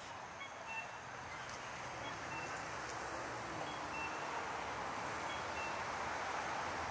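Street traffic noise slowly growing louder, with a faint electronic two-note beep, a higher note then a lower one, repeating about every second and a half, like an accessible pedestrian crossing signal.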